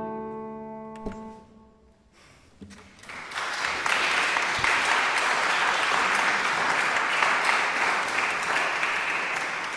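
A last nylon-string classical guitar chord rings out and dies away. About three seconds in, the audience starts applauding steadily, and the applause fades near the end.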